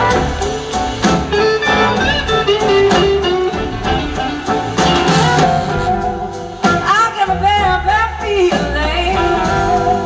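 Large blues-rock band playing live: electric guitars, drums and a horn section under a sung vocal line, the pitch of the lead line bending up and down.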